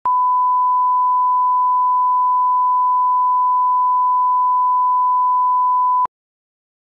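Steady 1 kHz line-up test tone, a single pure beep held at one pitch that cuts off suddenly about six seconds in.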